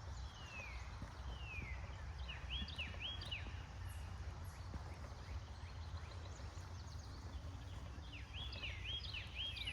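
Songbirds calling: a couple of falling whistled notes about a second in, then runs of short repeated chirps, one about a third of the way in and another near the end, over a low steady rumble.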